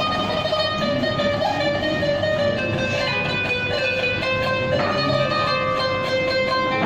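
Qanun (Arabic plucked zither) playing a solo melody.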